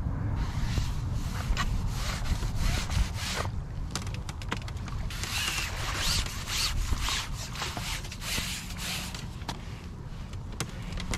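A hooked fish splashing at the surface as it is drawn into a landing net, mostly around the middle, with scattered clicks and knocks of rod and net handling. Low wind rumble on the microphone underneath.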